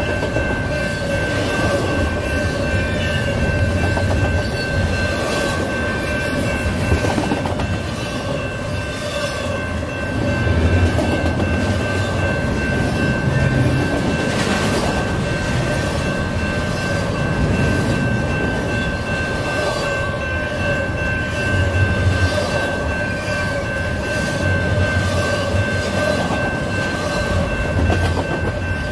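Double-stack intermodal freight train rolling past: a steady rumble of well cars, with wheels clacking in an even rhythm over rail joints. A level-crossing warning bell rings steadily over it.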